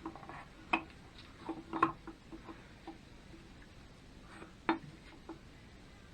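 Light knocks and clicks of engine parts and tools being handled, three of them sharper than the rest: about a second in, just under two seconds in and near the end.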